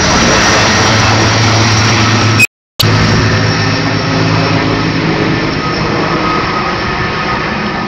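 Sikorsky S-64 Skycrane heavy-lift helicopter's twin turbine engines and six-blade main rotor running as it flies overhead, a loud steady noise with a low hum that slowly fades as it moves away. The sound cuts out briefly about two and a half seconds in.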